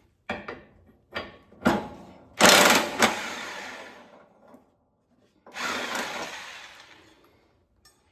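Harbor Freight impact wrench hammering on a mower blade bolt in bursts: a few short blips, then two longer runs about three seconds apart, loosening the bolt to change the worn blades.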